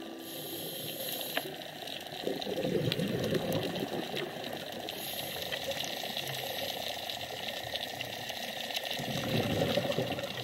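Underwater sound picked up by the camera: a steady muffled water noise with scattered crackling clicks, swelling into bubbling twice, around three seconds in and near the end.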